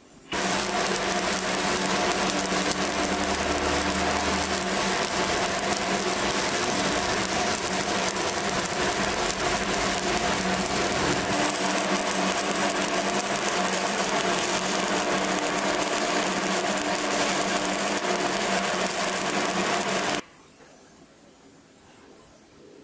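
Stick-welding arc: a coated electrode burning along a horizontal weld on steel plate, a steady crackling sizzle with a hum underneath. It strikes up at once and cuts off sharply about twenty seconds in as the arc is broken.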